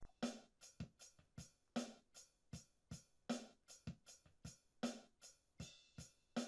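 Background music with a steady drum-machine beat.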